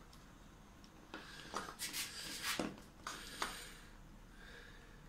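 Hands working a wire into the screw terminal of a modular circuit breaker: scraping and rubbing with a few small clicks, from about one second in until about three and a half seconds in.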